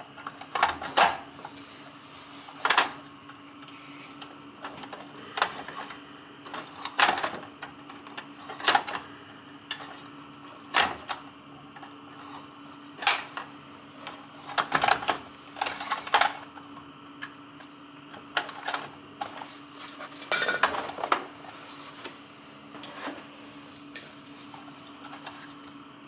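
Scattered sharp metallic clicks and clinks of a hand tool and wire connectors as wires are stripped and joined at an oil burner's control box, over a faint steady hum.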